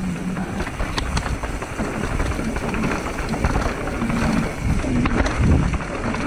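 Mountain bike ridden down a trail: wind buffeting the camera microphone, tyres rolling over the ground and the bike rattling and knocking over bumps.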